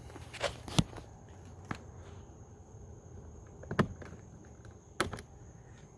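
Small metal pick prying at a plastic tab on a car's interior door handle trim: light scraping with three sharp plastic clicks spread over a few seconds.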